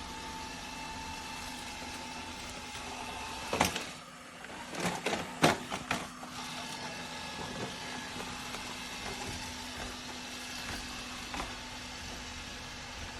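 Narwal Freo X Plus robot vacuum running with a steady whirring hum. About three and a half seconds in there is a sharp click, the hum dips, and a cluster of knocks and clicks follows for about two seconds before the steady running picks up again.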